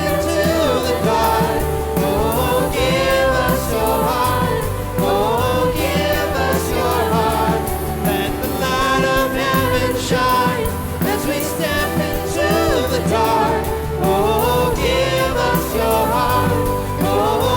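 Live worship music: a band playing with singers.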